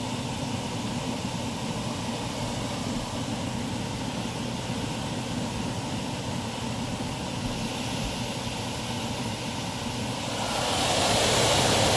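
Air-conditioning unit running with a steady machine hum. About ten seconds in, a louder rushing hiss comes in over it.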